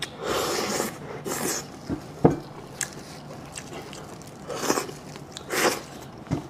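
Close-up eating sounds from someone eating sheep head: four or five short, noisy bursts of mouth noise a second or so apart, with a sharp click about two seconds in.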